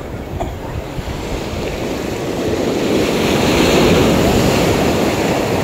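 Sea waves washing onto the shore, swelling to a louder surge about three to four seconds in.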